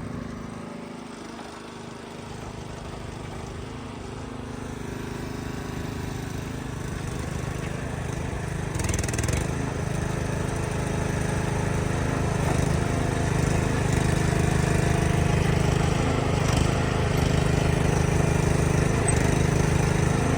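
Timber King B20 band sawmill running with its blade off: a steady machine hum with a low pulsing from its motors and hydraulic pump, growing gradually louder, with a short hiss about nine seconds in.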